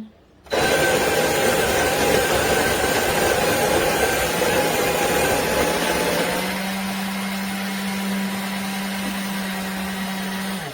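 Ollygrin electric conical burr coffee grinder starting up about half a second in and grinding coffee beans with a loud, steady motor-and-burr noise. Later on the noise eases a little and a steady low hum takes over until it stops at the end.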